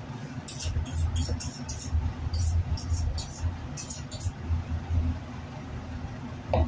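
Knife blade drawn quickly along a honing steel, a run of short, sharp scraping strokes in quick groups, over a steady low hum.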